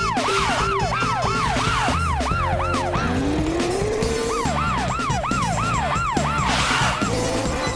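Cartoon ambulance siren: rapid falling wails, about three a second, over background music. It breaks off for about a second and a half, while a single rising whine plays, then starts again.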